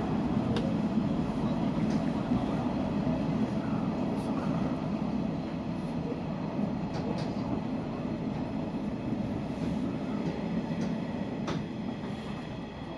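Hanshin electric train running on its rails, heard from inside the front car behind the cab: a steady rumble of wheels and running gear with a few sharp clicks, growing gradually quieter toward the end.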